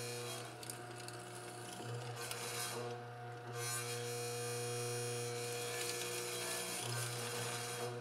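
Hollow chisel mortiser running steadily while its auger and square chisel bore into cherry. The cutting hiss rises and falls as the chisel is plunged and lifted, easing off briefly around three seconds in.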